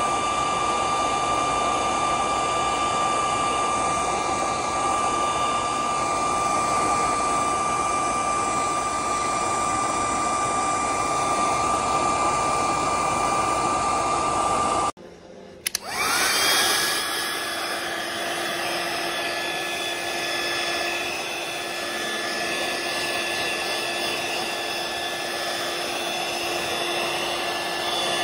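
LDK 1200 W electric heat gun blowing hot air, its fan running steadily with a high whine. About fifteen seconds in, the sound cuts out briefly. A heat gun then starts up with a rising whine and runs on steadily at a lower pitch.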